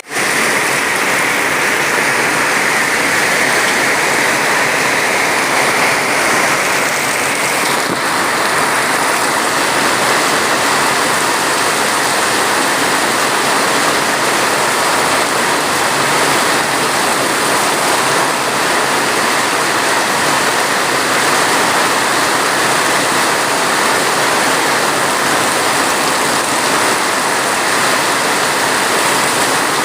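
Heavy, steady rain: a dense, even hiss with no separate drops standing out.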